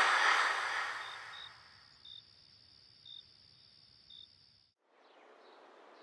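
Night-time insect ambience: a steady high drone with short chirps about once a second. It follows a loud hiss that fades out over the first second and a half, and everything cuts off sharply just under five seconds in, leaving faint room tone.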